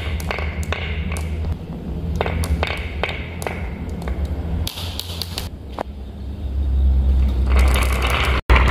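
Small balls clicking and tapping against each other and the wood as they are set one by one into the grooves of a wooden seesaw track, over a steady low rumble. A louder hiss rises near the end.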